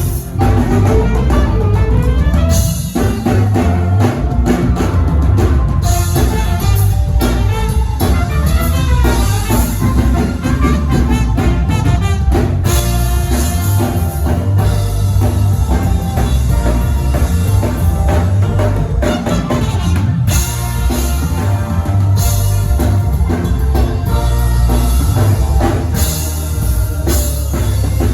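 Band music with a drum kit prominent: drums and a heavy bass under pitched instruments, loud and steady throughout.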